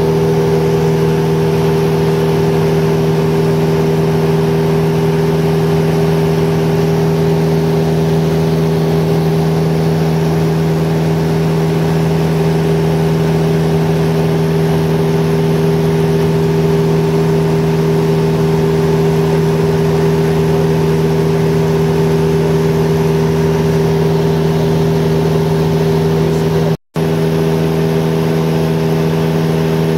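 Steady drone of a high-wing light aircraft's engine and propeller in cruise, heard inside the cabin, holding one pitch throughout. The sound cuts out for an instant near the end.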